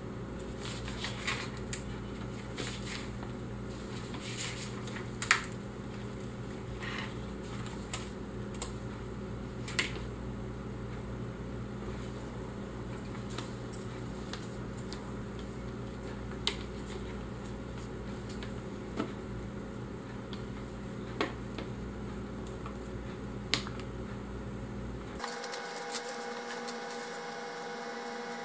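A hobby knife cutting on a wooden table gives irregular sharp clicks and ticks over a steady hum. About 25 seconds in the hum stops abruptly and a different steady background takes over.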